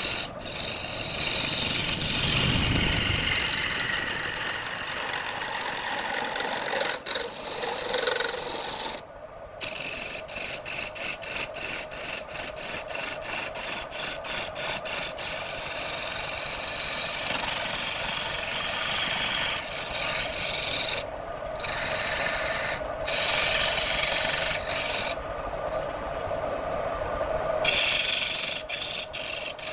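Wood lathe spinning a piece of wood while a turning tool cuts against it: a rough scraping, rasping noise over a steady hum. For a few seconds in the middle the sound breaks up into rapid short gaps, about three a second.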